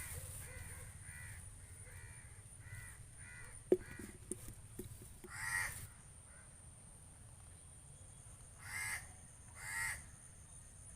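Crows cawing: a run of short caws about two a second at first, then three louder caws in the second half. A sharp click about four seconds in, followed by a few lighter ticks.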